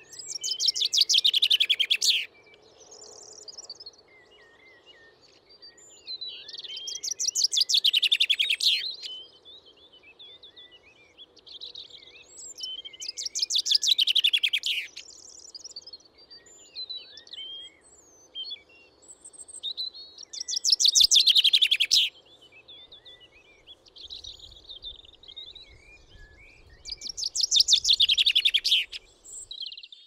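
A songbird singing a loud, rapid trilled phrase about two seconds long that falls in pitch, repeated five times roughly every six to seven seconds, with quieter chirps from other birds in between. A faint steady low hum lies underneath.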